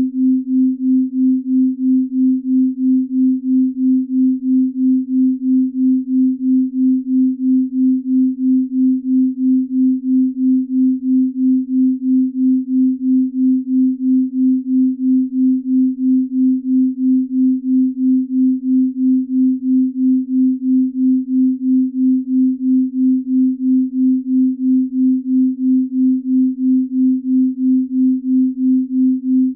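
Binaural-beat sleep tone: a single low, steady pure tone that swells and fades evenly about twice a second, the slow beat of a deep-sleep binaural track.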